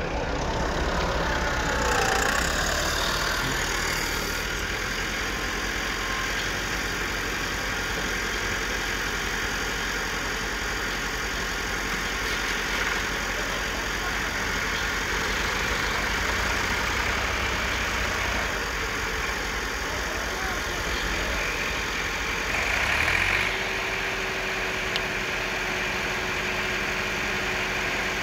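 Diesel engines of a wheeled excavator working its boom and bucket and a Massey Ferguson 260 tractor's three-cylinder diesel, running steadily together. The note swells briefly near the start. About three-quarters of the way through the low rumble drops and a steady higher tone comes in.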